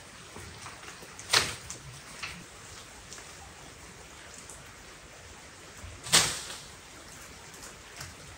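Sharp knocks as chestnuts are beaten from the tree with a long pole: two loud ones, about a second and a half in and about six seconds in, and a couple of fainter ones. Under them runs the steady hiss of light rain.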